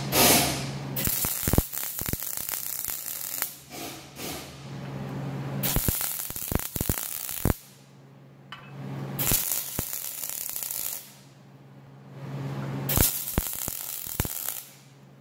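Lincoln Power MIG 200 wire-feed welder welding steel bar stock: the arc crackles and sputters in four bursts of one to two seconds each, with short pauses between them, as the bead is laid in stitches.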